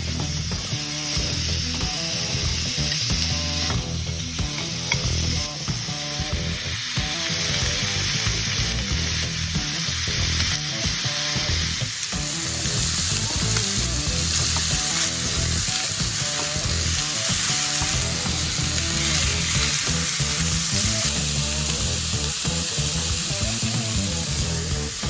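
Food sizzling as it fries in an aluminium skillet, a steady hiss that changes about halfway through, with background music under it.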